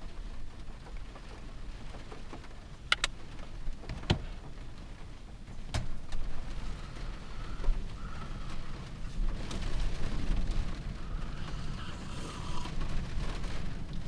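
Rain drumming steadily on the roof of a camper van, heard from inside, with a few sharp knocks now and then.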